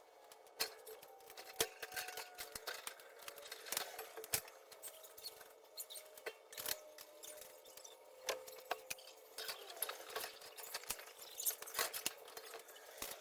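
Irregular clicks and light clinks of steel rack parts and hardware being handled and fitted together during assembly.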